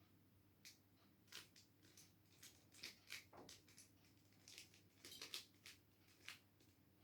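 Faint, irregular plastic clicking of a 3x3 mirror cube's layers being turned by hand, in quick clusters of turns.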